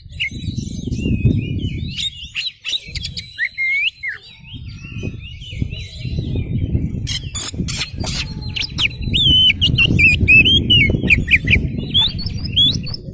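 Oriental magpie-robin (kacer) singing continuously: a fast run of varied whistles, slurred glides and trills. A loud low rumble rises and falls beneath the song in long stretches.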